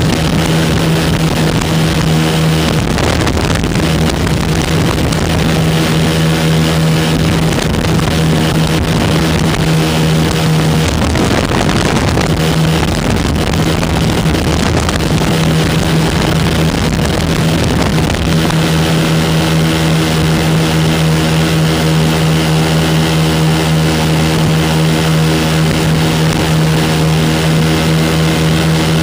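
The twin 9.5 hp Rotax two-stroke engines and propellers of a Lazair ultralight droning steadily in flight. The steady pitch blurs and wavers for a few seconds in the middle, then settles back to an even drone.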